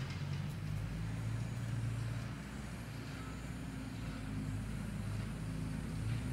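Steady low hum and rumble of outdoor background noise, typical of distant road traffic, with no distinct event standing out.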